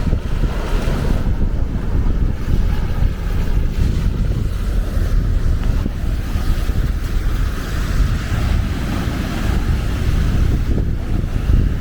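Wind buffeting the microphone with a loud, fluttering rumble, over the steady wash of small waves breaking on a sandy shore.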